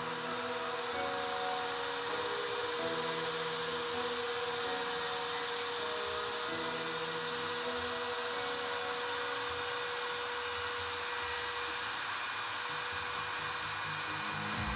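Small CNC router's spindle running steadily with a high hiss and a steady whine, which fades about three-quarters of the way in. Background music with slow low notes plays underneath.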